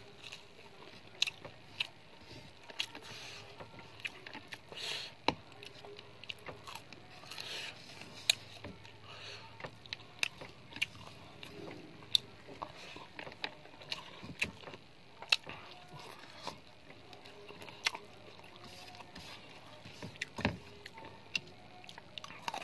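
Eating rice and fried chicken by hand: irregular short clicks and smacks of chewing, with fingers working the rice on the plate.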